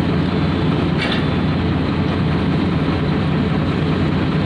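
Steady drone of heavy diesel engines: a Komatsu PC450 hydraulic excavator working as it loads an Eicher tipper truck running alongside.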